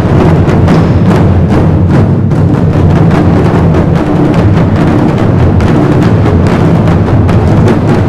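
Chinese drum ensemble of about a dozen red barrel drums struck with sticks, playing together in a loud, fast, unbroken rhythm of dense drum strokes.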